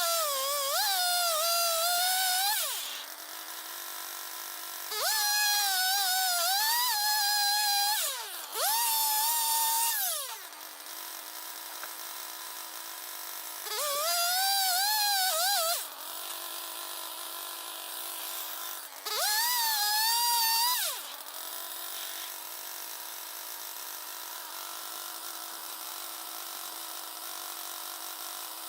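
M6 Turbosawmill swing-blade sawmill's engine running, with five loud stretches of a few seconds each in which it revs up, wavers in pitch as the circular blade cuts through the log, and drops back to a low steady hum. The last several seconds hold only the low hum.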